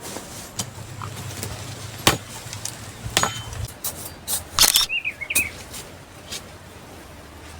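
Wood being chopped: a few sharp, separate strikes. A bird chirps briefly after the last strike.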